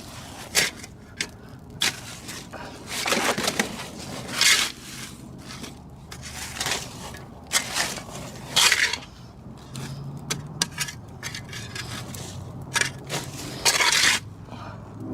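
Gritty scraping and crunching as soil is worked and packed down around a freshly set fence post, in irregular bursts a second or two apart.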